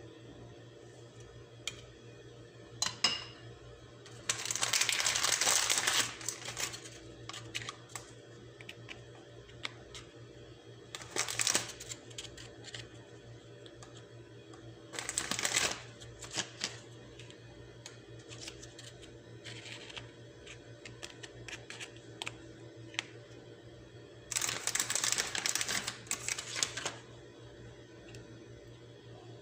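Hands laying crackers into a dish of cream mixture: scattered clicks and taps, with four bursts of rustling lasting one to two seconds each, over a low steady hum.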